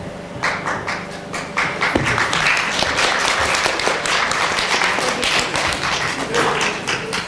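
Audience applauding: a few separate claps about half a second in that quickly swell into steady applause from many people.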